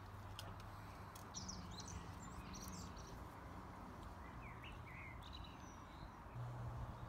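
Quiet garden ambience: faint bird chirps in the background and a low hum.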